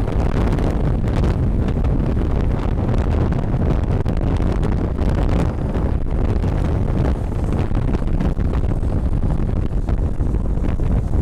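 Strong gusty wind buffeting the microphone: a loud, steady low rumble that swells and eases slightly.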